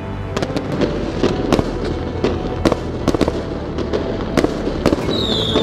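Firecrackers going off in scattered, irregular sharp bangs over a steady low background.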